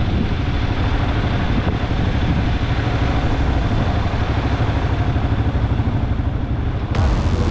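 Motorcycle engine running steadily under way, a constant low drone with road and air noise over it. Near the end the sound abruptly gets louder and hissier.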